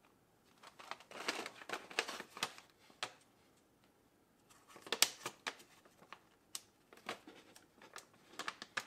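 Clear plastic zip-lock bag crinkling and clicking as fingers handle it and work along its zip seal, in two spells of small crackles with a short pause between.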